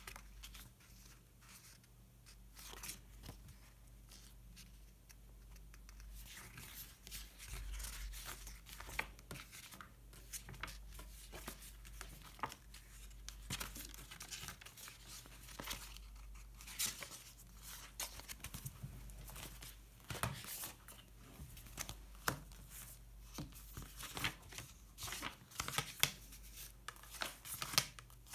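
Paper sticker sheets being handled, with stickers peeled off their backing: irregular crackling, crinkling and small clicks that get busier after the first few seconds.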